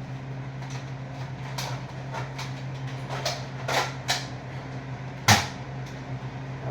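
Nerf blaster being fired, a series of sharp snaps and knocks with the loudest about five seconds in, over a steady low hum.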